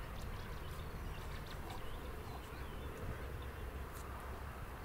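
Faint outdoor ambience: a steady low rumble with scattered short, high ticks and chirps throughout.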